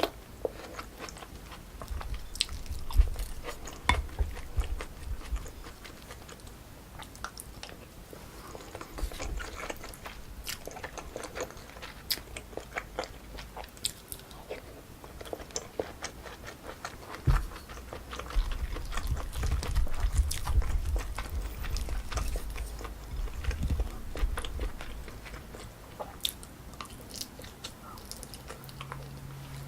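Close-miked eating sounds: chewing and biting on pork kimchi stew with rice, with many small clicks and crackles, heavier in two stretches.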